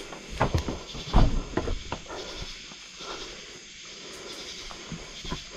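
A few footsteps and knocks in the first couple of seconds, then a steady hiss of night insects.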